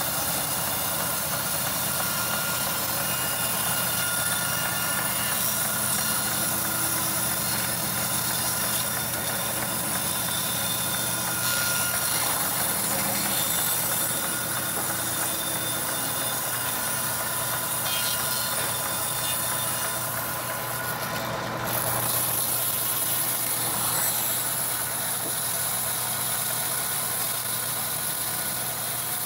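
Band sawmill running steadily, its blade ripping lengthwise through a mahogany log, with a constant high whine over the machine noise.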